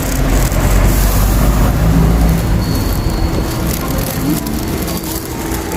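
Steady low rumble of a moving vehicle or road traffic, with faint voices underneath.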